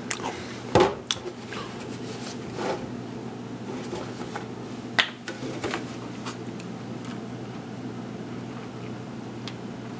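A small milk container and cereal bowl being handled: a few sharp clicks and light knocks, the loudest about a second in and at five seconds, with fainter ticks between, over a steady low hum.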